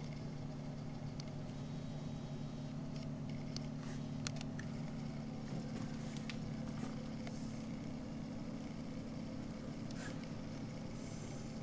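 A steady low hum at a few fixed pitches, with scattered faint clicks and ticks over it.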